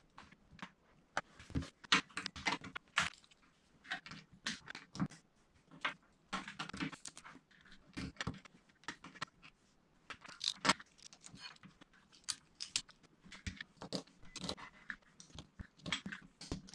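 Plastic Lego bricks clicking and clattering as they are snapped together and set down on a hard tabletop. The clicks are short and sharp and come in quick irregular runs with brief pauses.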